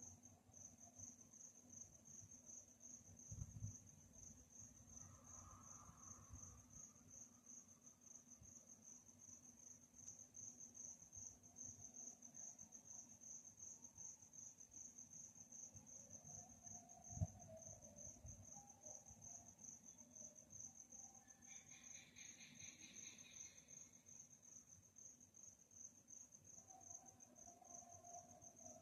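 Faint crickets chirping in a continuous, rapidly pulsing high trill. A second, lower-pitched pulsing insect call joins briefly about two-thirds of the way through, and there are a couple of soft low thumps.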